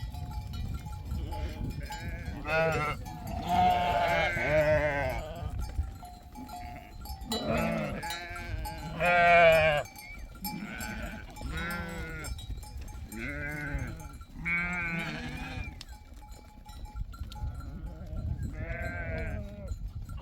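A flock of sheep bleating: many separate wavering calls, one every second or two, some overlapping.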